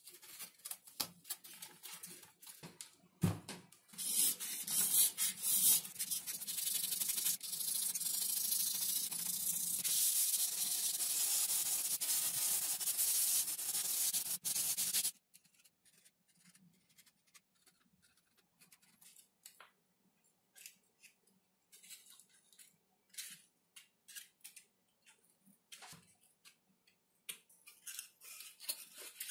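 A steady hissing noise starts about four seconds in, rough at first and then even, and cuts off suddenly after about eleven seconds. Faint small clicks and handling sounds follow.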